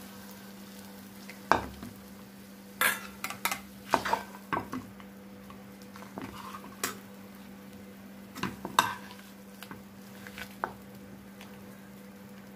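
A spoon scraping and knocking against a frying pan as thick fried gongura chutney is scooped out into a bowl: irregular scrapes and clicks, busiest in the first five seconds and again about nine seconds in.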